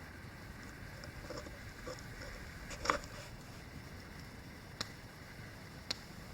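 A few scattered sharp clicks and pops over a steady low outdoor hiss, the loudest about three seconds in and two more near the end.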